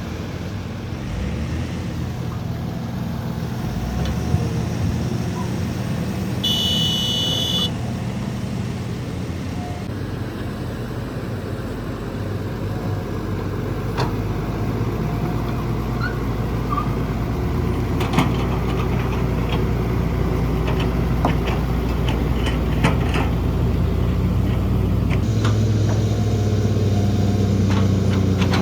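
Heavy diesel machinery, an excavator with dump trucks, running steadily. A short high-pitched tone sounds about seven seconds in, and scattered knocks and clanks come through the middle. The engine note rises and thickens near the end.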